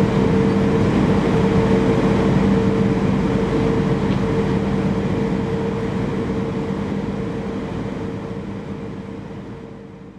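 Steady cabin noise of an Airbus A320 in flight, heard from a window seat over the wing: a rush of airflow with a steady engine drone and hum. It fades out over the last few seconds.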